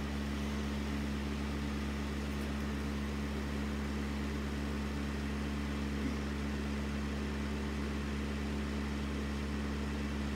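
Steady mechanical hum of a running appliance, a constant low drone with a few fixed tones that does not change.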